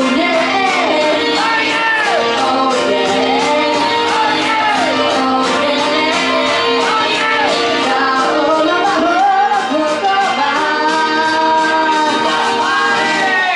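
A woman singing a pop song into a handheld microphone over instrumental accompaniment with a steady beat.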